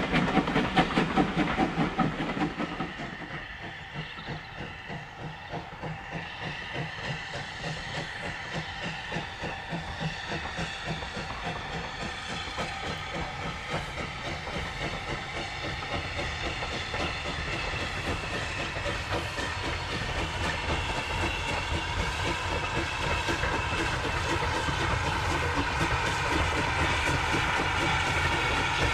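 LSWR T9 4-4-0 steam locomotive working a passenger train, its exhaust beating in a steady rhythm with a hiss of steam. The sound is loud at first, drops away about three seconds in, then builds steadily louder as the train draws nearer.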